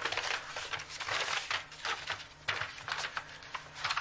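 Paper rustling in irregular bursts as letters and envelopes are handled.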